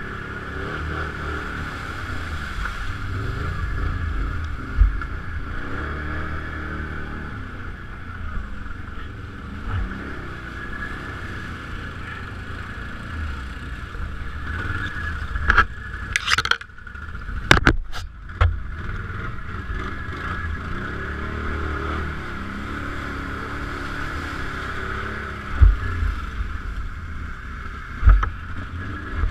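Can-Am quad bike engine running on a rough off-road track, its pitch rising and falling with the throttle over a steady high drive whine. Several hard knocks and thumps are heard, with a cluster about halfway through.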